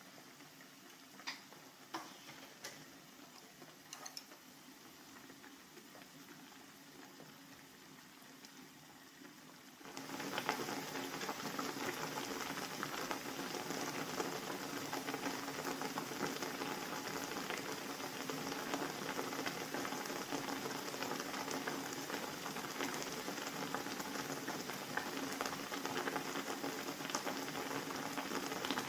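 Pot of water for ramyun on the stove: a few small clicks, then about ten seconds in a dense bubbling of boiling water sets in abruptly and continues steadily.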